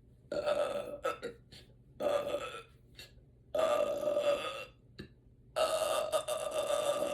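A woman belching four times, each burp held at an even pitch, the last two the longest. The burps bring up gas from the carbonated sparkling water she has drunk.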